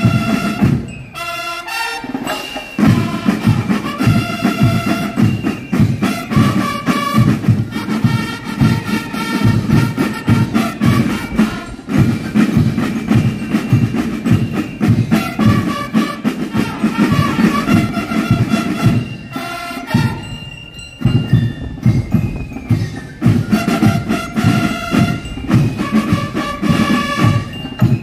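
School marching band playing: a rapid, driving snare-drum beat with a pitched melody over it, breaking off briefly about a second in and again about two-thirds of the way through, then stopping near the end.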